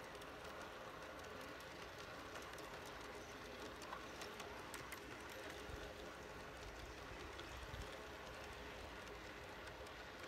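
G-scale model freight train rolling along outdoor track: the wheels click irregularly over the rail joints, over a faint steady hum.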